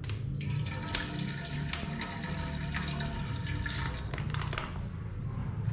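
Cooking oil poured from a plastic pouch into a wok: a steady pouring stream that starts about half a second in and stops about four seconds in.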